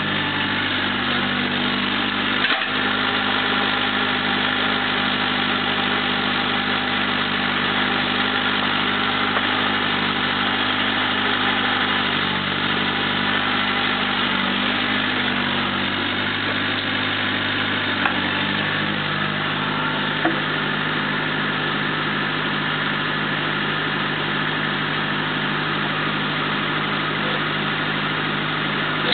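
Mini excavator's diesel engine running steadily while the operator digs with the boom and bucket, with a few short knocks from the bucket and linkage.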